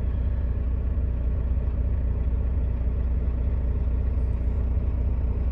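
Steady low drone of a Peterbilt semi truck's diesel engine and road noise, heard inside the cab while driving.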